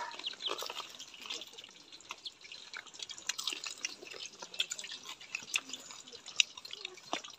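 Crispy fried bottle-gourd fritters crunching as they are broken apart by hand and chewed: a steady scatter of quick, sharp, crackly clicks.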